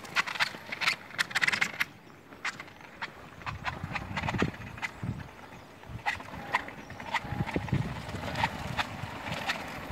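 Tracked wheelchair driving through snow: its crawler tracks clatter with irregular clicks and knocks over a low rumble.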